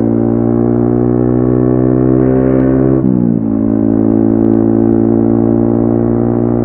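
Yamaha XSR155's single-cylinder engine running through a DIY exhaust while cruising, a steady note that climbs slightly, then dips briefly in revs about three seconds in before holding steady again.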